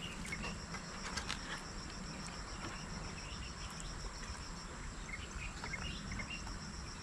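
An insect chirping outdoors in a fast, even, high-pitched pulse, pausing briefly about five seconds in. Light clicks and taps of ginger and garlic slices being set into a metal frying pan of whole fish.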